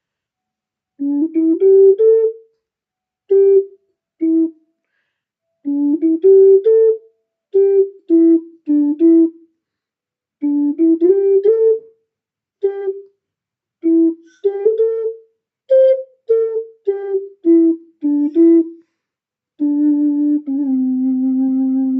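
A simple tune played in a flute-like tone: short separate notes stepping up and down in phrases with pauses between them, ending on one long held low note that wavers slightly.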